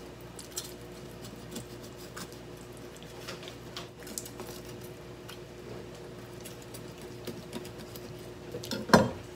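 Kitchen knife slitting open the belly of a whole sea bream on a plastic cutting board: faint, scattered scratchy ticks as the blade cuts through skin, over a steady low hum. A single knock near the end.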